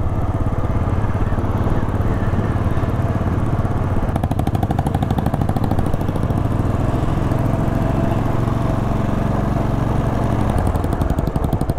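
Royal Enfield Bullet 500's air-cooled single-cylinder engine running steadily under way, a fast even pulse, heard from the rider's seat with wind noise.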